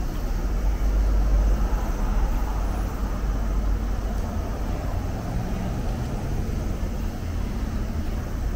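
Steady road traffic from cars driving along a busy multi-lane avenue: an even wash of noise, mostly low in pitch, with no single pass standing out.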